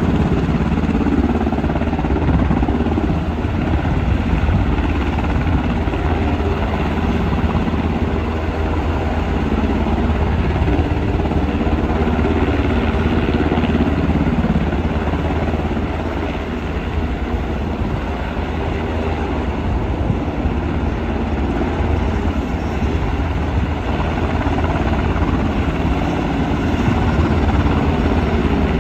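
UH-60 Black Hawk helicopter running steadily, a loud, even rotor and turbine noise with a deep low hum underneath.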